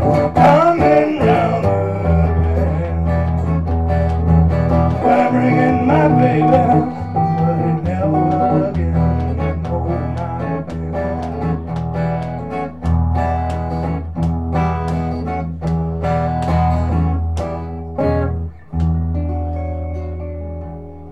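Acoustic guitar strummed in a steady driving rhythm over a pulsing bass line, playing out the end of the song; near the end a last chord is struck and left to ring and fade.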